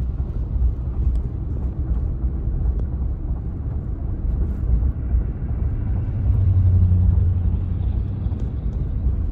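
Low engine and road rumble of a vehicle driving, with the engine note swelling louder for about a second and a half past the middle.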